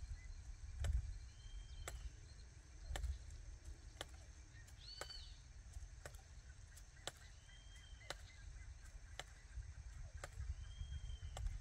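Hand jab planter (matraca) driven into the soil and worked about once a second to drop corn seed: a sharp click with each stroke and a few dull thuds. A bird calls several times with short arched whistles.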